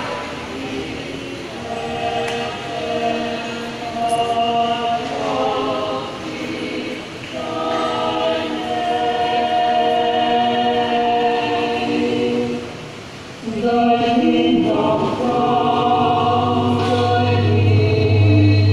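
A small group of voices singing a cappella in held chords, with short breaks between phrases. A steady low hum comes in a few seconds before the end.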